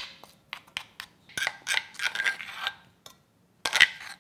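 A spoon scraping crushed garlic out of a mortar bowl, in a string of short scrapes and taps against the bowl, then a brief pause and one more scrape near the end.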